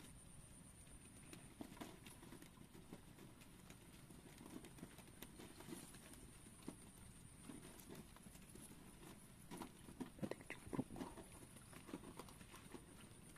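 Faint footsteps and scuffs on the ground, irregular knocks that grow loudest about ten to eleven seconds in, over a faint steady high-pitched hum.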